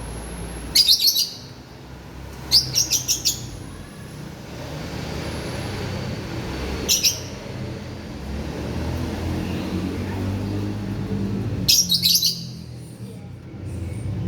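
Lovebird giving four short bursts of shrill, rapid chirps, about a second in, near 2.5 s, near 7 s and near 12 s, over a steady low rumble.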